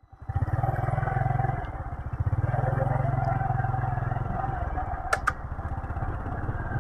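Motorcycle engine running as the bike rides along, a steady fast low pulsing. Two sharp clicks about five seconds in.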